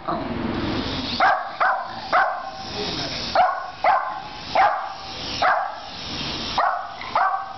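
Small terrier barking repeatedly at a toy RC helicopter: about nine sharp barks in singles and quick pairs, the alarm barking of a dog faced with a strange flying object. Between the barks runs a steady high whir from the toy helicopter's spinning rotor.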